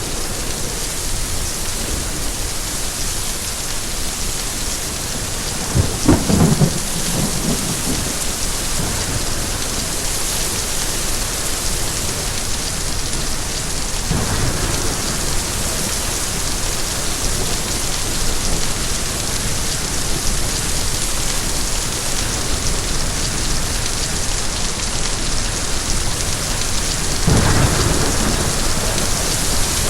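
Steady rain with thunder: a sharp clap and rumble about six seconds in, a fainter rumble around the middle, and another rumble near the end.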